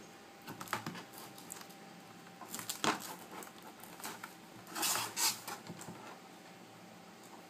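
Scattered light clicks and taps, loudest about three and five seconds in, from tools and the glass digitizer being pried and lifted off an iPad 2's frame.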